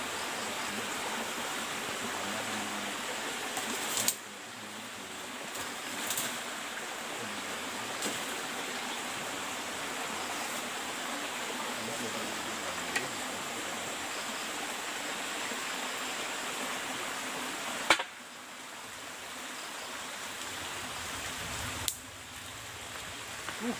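Steady rush of a small stream's running water, broken by a few sharp clicks where the sound drops away suddenly and then builds back up.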